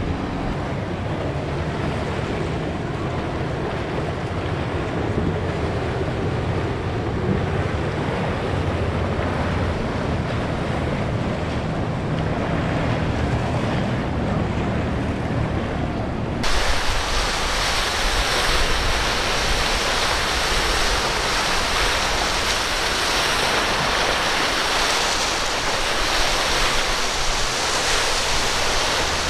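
Waves and surf rushing with wind buffeting the microphone, over a low rumble. About sixteen seconds in the sound changes abruptly to a brighter, hissier rush of surf and wind.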